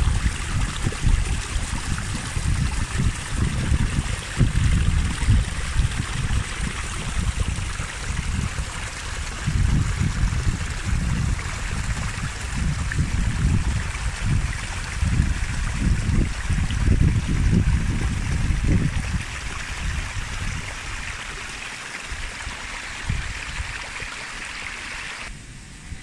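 Small stream running in a shallow cascade over dark rock: a steady rushing, splashing hiss with an uneven low rumble underneath that eases after about twenty seconds. The rushing drops away abruptly just before the end.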